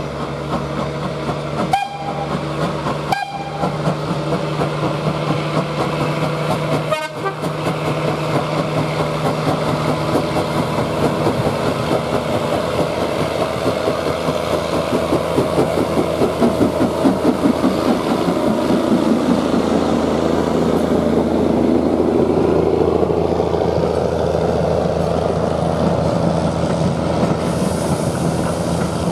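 Kitson 0-6-0 saddle-tank steam locomotive No. 5459 'Austin 1' pulling a passenger train past, its exhaust chuffing in an even beat as it draws level. The coaches then roll by, with a Class 08 diesel shunter at the rear of the train.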